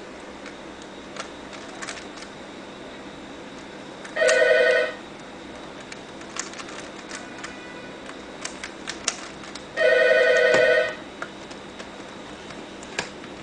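Plastic MF8 mini DaYan 4x4 speed cube being turned, its layers giving scattered light clicks; it is a factory sample, neither modified nor broken in. A telephone rings twice, about four seconds in and again about ten seconds in, each ring a warbling trill of about a second and the loudest sound.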